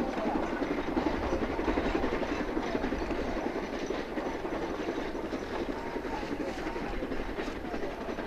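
C2-class narrow-gauge steam locomotive working under steam, heard from far off, its exhaust a quick, steady beat of chuffs.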